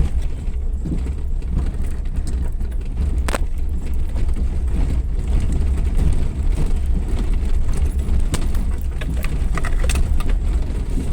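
Suzuki Jimny 4x4 driving off-road: a steady low engine and driving rumble, with a few sharp knocks and rattles, one about three seconds in and several more near the end.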